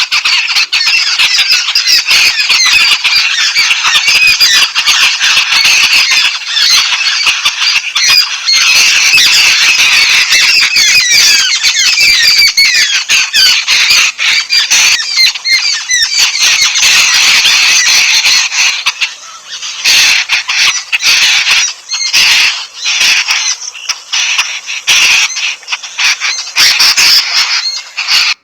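A flock of yellow-billed babblers chattering: many harsh, squeaky calls overlapping without a break, thinning into separate bursts of calls with short gaps in the last third.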